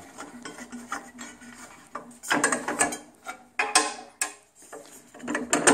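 Aluminium rip fence of a bandsaw being taken off its bracket: knobs loosened and the fence slid off, metal scraping and clicking, with sharp clicks about three and a half and four seconds in.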